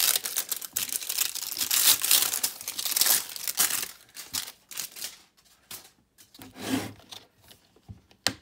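Plastic packaging on a slime tub being torn and crinkled as it is opened: a dense scratchy tearing for about four seconds, then a few scattered short crinkles.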